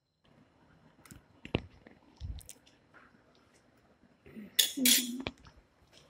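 Kitchen handling noises around a steel plate of stuffed bitter gourds: a few light clicks and taps, a soft knock, then a louder clatter about four and a half seconds in.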